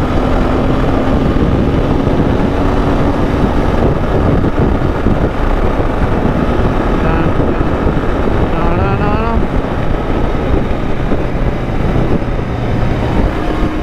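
Royal Enfield Continental GT650's parallel-twin engine running while riding on the road, mixed with heavy wind rush on the microphone.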